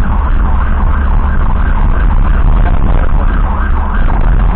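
An ambulance siren yelping, in quick repeated rising-and-falling sweeps, over a heavy low rumble of engine and road noise inside the moving ambulance.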